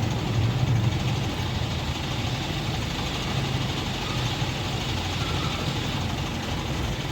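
Diesel engine of a Hydra mobile crane running steadily.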